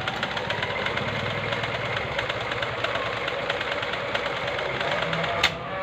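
JUKI Flora 5000 domestic sewing machine running at speed, its needle stroking rapidly and steadily as it stitches a decorative pattern. It stops with a sharp click near the end.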